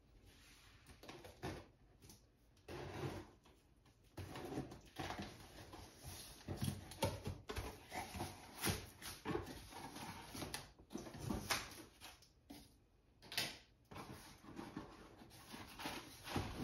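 Cardboard box opened by hand, with its packing tape pulled off and the flaps folded back: irregular rustles, scrapes and short sharp tearing sounds with brief pauses between them.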